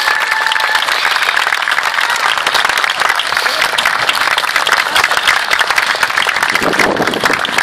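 Audience applauding: a dense, steady patter of many hands clapping. A short steady high tone sounds in the first second, and a voice comes in near the end.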